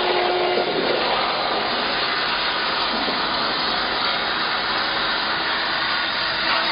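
CNC plasma cutting torch cutting, a loud steady hiss of the arc and air jet.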